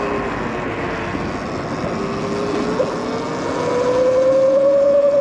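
E-bike electric motor whining as it rides, its pitch dipping as the bike eases off and then climbing steadily as it speeds up again, over a steady rushing noise.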